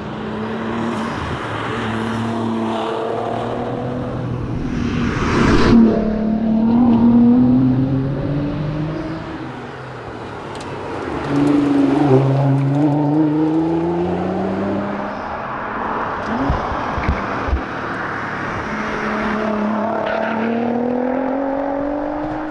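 Nissan R35 GT-R's twin-turbo V6 under hard acceleration, the pitch climbing and dropping back at each gearchange several times over. About halfway through it lifts off briefly and then pulls again, with a few short sharp cracks around two-thirds of the way in.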